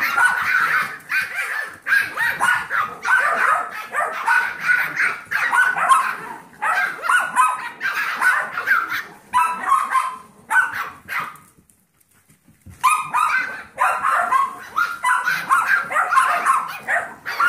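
Puppies barking and yipping rapidly in rough play, high-pitched yaps coming in quick succession. There is a brief lull about twelve seconds in.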